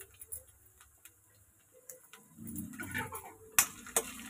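Sliced onions frying in oil in a kadhai, with faint scattered crackles. About two and a half seconds in, a spatula starts stirring them with a scraping, shuffling sound, and knocks twice sharply against the pan near the end.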